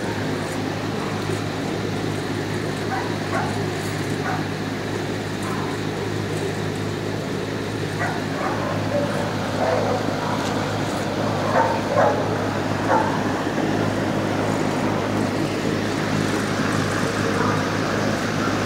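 Dogs barking intermittently from other kennels, with a louder cluster of barks a little past the middle, over a steady low mechanical hum.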